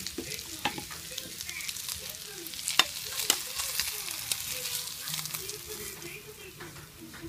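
Pork pieces sizzling in a nonstick frying pan while a spatula scrapes and knocks against the pan, scooping them out, with scattered sharp clicks, the loudest about three seconds in.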